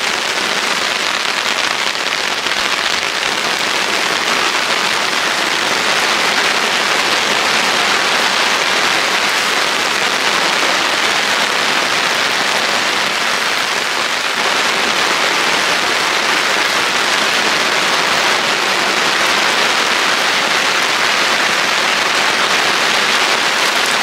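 Summer rain shower falling steadily and evenly.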